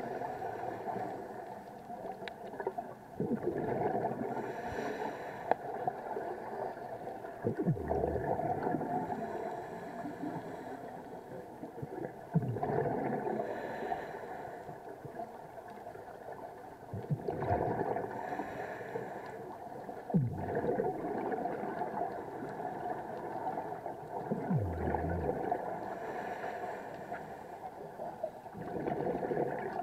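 Scuba regulator breathing underwater: slow breaths with exhaled bubbles gurgling, recurring about every four to five seconds.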